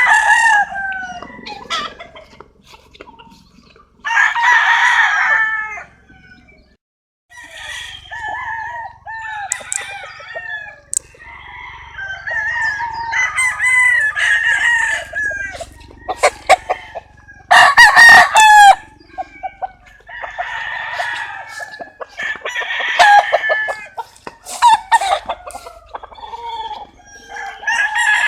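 Several roosters crowing one after another, overlapping with hens clucking and cackling. A brief lull comes about six seconds in, and a burst of sharp, loud calls around eighteen seconds.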